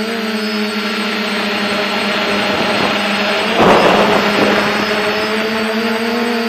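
DJI F450 quadcopter's brushless motors and propellers running with a steady, slightly wavering whine. One motor has a worn bearing. About three and a half seconds in, a brief rush of noise lasting about half a second rises over it.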